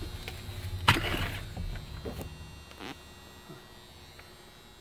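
Handling noise from a handheld camera moving around a truck cab: a low rumble and a sharp knock about a second in, with a few lighter clicks. It fades to a faint steady hum after about three seconds.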